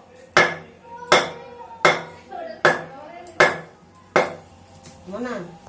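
A wooden block hammering the back of a large knife to chop through a turtle's shell: six sharp knocks, evenly spaced about three-quarters of a second apart.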